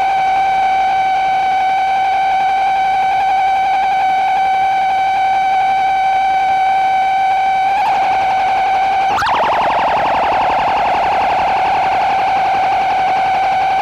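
Noise music: a loud, steady electronic tone with a stack of overtones, held unchanged. About nine seconds in it breaks with a sharp glitch and turns rough and warbling, then settles back toward the same pitch.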